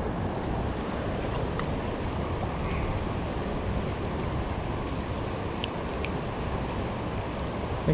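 Shallow river current washing over rocks: a steady rush of flowing water, with two faint clicks about six seconds in.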